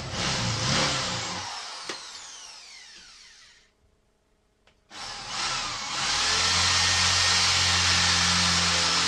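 Corded electric drill boring a pilot hole into timber. It runs, is let off and spins down with a falling whine, stops for about a second, then starts again about five seconds in and runs steadily.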